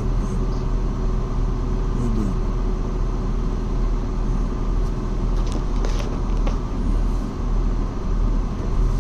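A car's engine and road noise heard from inside the cabin while driving: a steady low rumble, with a few light clicks a little past halfway.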